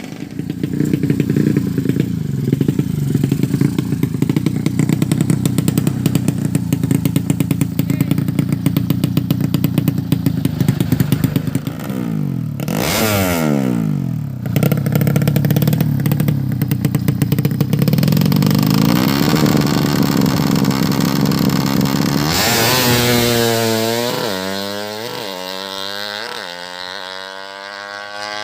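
Drag-racing motorcycle engine running hard, with a brief drop and rise in pitch about halfway through. Near the end it accelerates away, its pitch climbing and dropping back about five times as it fades.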